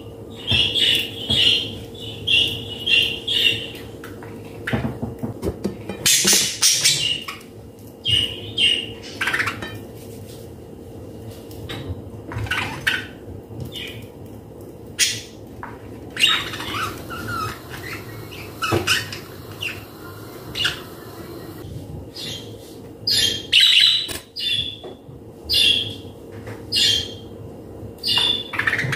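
Silicone whisk squeaking and scraping against a glass mixing bowl as thick cake batter is beaten, in quick strokes of about three a second, stopping for a while in the middle and starting again near the end.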